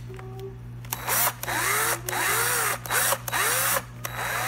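Small power drill-driver driving a screw into a 3D-printed plastic part in about six short bursts, its motor speeding up and slowing down with each burst.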